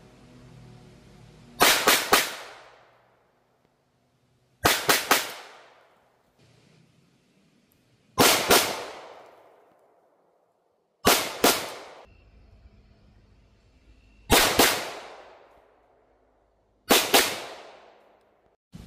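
10mm Auto pistol shots from a Glock G40 and a stainless Smith & Wesson 1006: six quick strings of two or three rounds, each string trailing off in echo.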